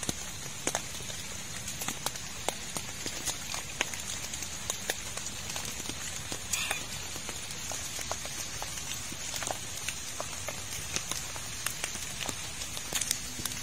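Steady rain falling, with irregular sharp drops tapping on a plastic tarp shelter.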